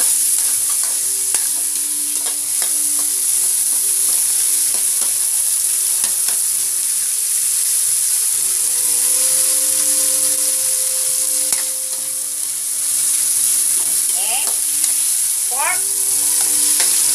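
Sliced onions, garlic and tomatoes sizzling in hot oil in an aluminium wok as they are stirred, with the utensil scraping and clicking against the pan. A few quick squeaky scrapes come near the end.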